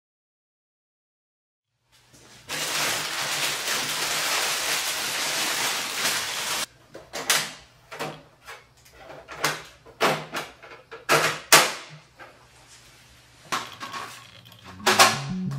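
The plastic front paper tray and top cover of a Canon PRO-300 photo printer being pulled out and opened by hand: a string of about ten sharp clicks and knocks. Before them comes a steady hiss of about four seconds.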